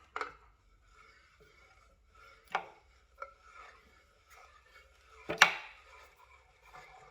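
A few sharp knocks and clatters of tools and parts being handled and set down during the unicycle teardown: one right at the start, another about two and a half seconds in, and the loudest about five and a half seconds in.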